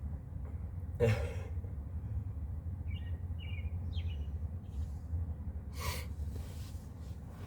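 Outdoor ambience with a steady low rumble, a few short bird chirps about three seconds in, and a breathy exhale about six seconds in.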